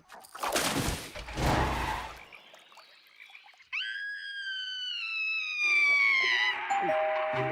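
Cartoon sound effects: a noisy rushing burst, then, after a short lull, a sudden long high-pitched wail that glides slowly downward. Music comes in near the end.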